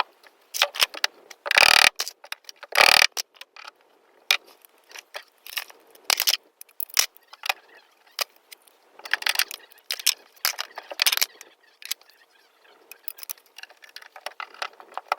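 Irregular metallic clinks, clicks and rattles of fittings and tools being handled during a valve install, with two louder scraping bursts about one and a half and three seconds in.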